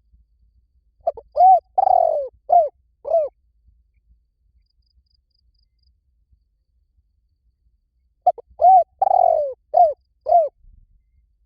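Spotted dove cooing: two phrases of about five coos each, several seconds apart, each note rising and falling in pitch. A call recording of the kind played back to set a captive dove cooing in reply.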